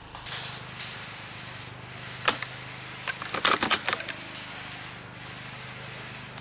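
Rustling, then one sharp click a little past two seconds in, followed by a quick run of clicks and rattles, as an airsoft bolt-action sniper rifle is handled and brought up to the scope. A faint steady low hum lies underneath.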